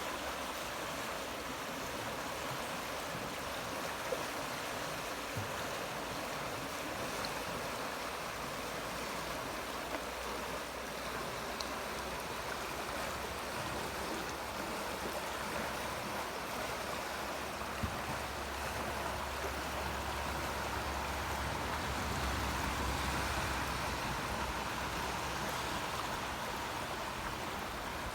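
The Amblève river flowing: a steady, unbroken rush of water.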